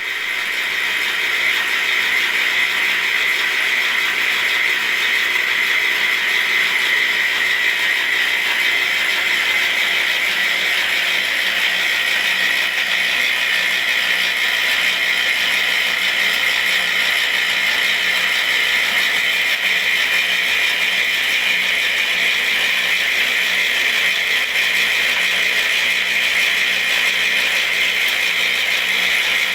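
Play-money printing machine running steadily, a continuous mechanical clatter that holds unchanged throughout.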